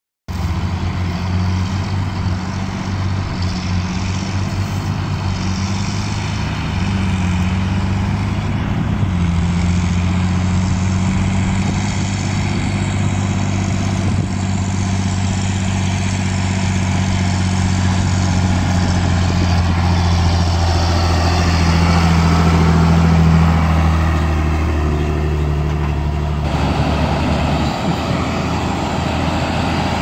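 Large diesel farm tractor engines running in a series of cut-together shots. The steady engine note starts suddenly, shifts about a third of the way in, swells briefly past the middle, and changes abruptly a few seconds before the end.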